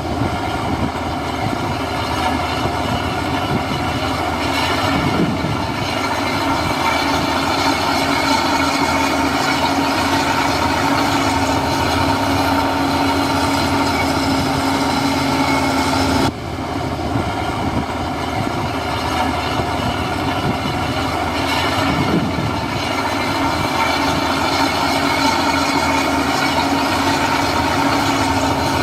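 Heavy diesel construction machinery running steadily under load, with a steady whine over the engine. It breaks off and restarts abruptly about sixteen seconds in.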